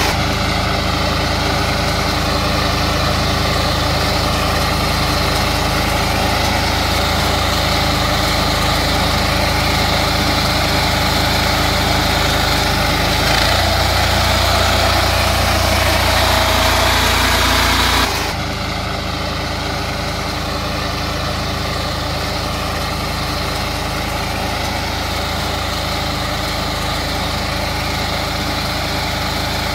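Engine of a walk-behind power reaper running steadily under load while cutting crop. About 13 seconds in the note shifts and gets a little louder, and about 18 seconds in it drops suddenly to a quieter steady run.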